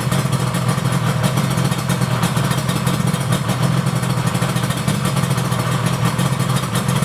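Yamaha R1-Z 250's two-stroke parallel-twin engine running at a steady idle, a rapid even rattle with no revving.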